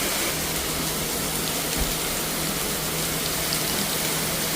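Steady hiss of heavy rain heard from inside a car, with a low steady hum beneath it and a single low thump about two seconds in.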